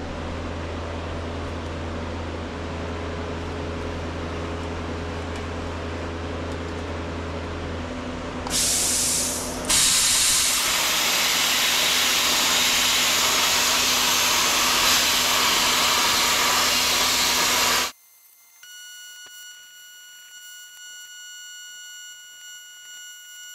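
Plasma cutter cutting through a steel bumper: a steady hiss over a low hum, turning into a louder, harsher hiss partway through. It cuts off suddenly about three-quarters of the way through, leaving only faint steady high tones.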